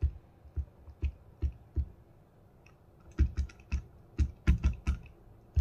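Stylus tapping and clicking on a tablet's glass screen during handwriting: irregular short taps, a few spaced out at first, then a quicker cluster of about eight taps later on.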